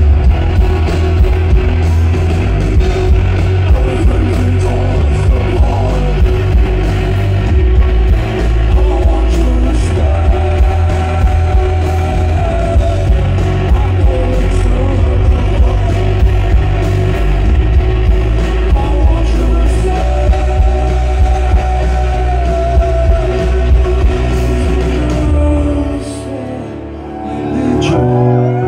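Live rock band playing loudly: drums, heavy bass and electric guitar under sung vocals. About 26 seconds in the heavy bass and drums drop away to a quieter passage, which swells again at the very end.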